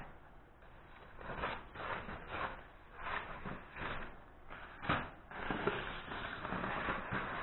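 400-grit sanding block rubbing over the primed lip of a BMW E46 M3 alloy wheel by hand, in uneven rubbing strokes that grow steadier near the end. The sanding is light, to take high points off the primer before paint.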